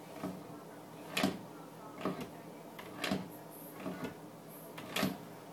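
A baby making short, sharp mouth noises, six of them about a second apart.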